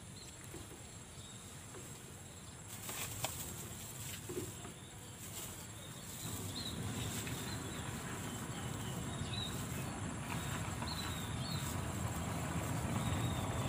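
Outdoor background noise while fishing a concrete drain: a low rumble that grows louder about six seconds in, with faint high chirps and a few light clicks around three seconds in.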